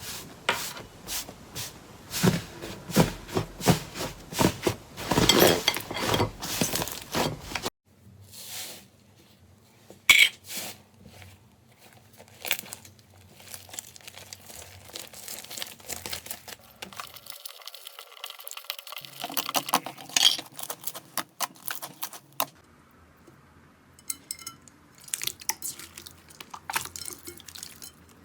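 Slime being squeezed and poked by hand, a run of sticky clicks, crackles and squishes. The sound changes abruptly about eight seconds in, becoming sparser.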